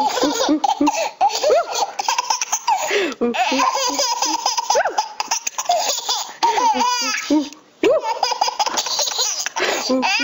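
Two babies laughing hard together, one burst of giggles and squeals after another, with a brief pause about three-quarters of the way through.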